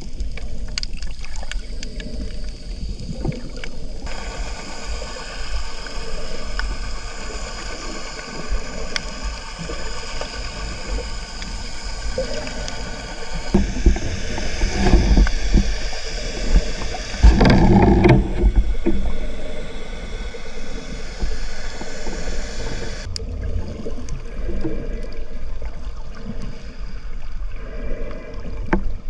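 Boat motor running steadily with the boat underway, wind buffeting the microphone in gusts. The motor's higher, steady tones drop away about 23 seconds in, leaving mainly rumble and wind.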